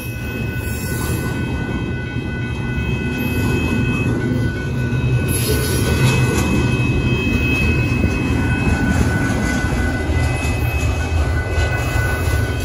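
Double-stack intermodal freight train rolling past: a steady low rumble of the well cars on the rails, with thin high-pitched wheel squeals that come and go.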